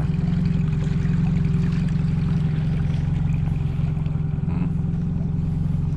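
Boat's outboard motor running steadily at low trolling speed, an even low drone.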